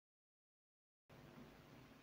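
Near silence: dead digital silence, then faint room tone from about a second in.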